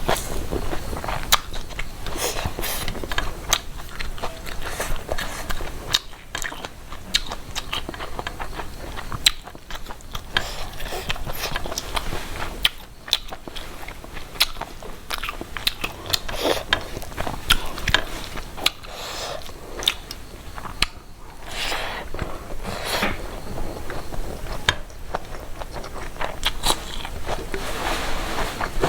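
A person chewing and biting food close to the microphone: many short, irregular mouth clicks and smacks throughout.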